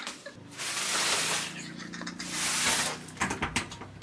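Rustling and handling noise, two long swishing swells, as the camera is picked up and moved.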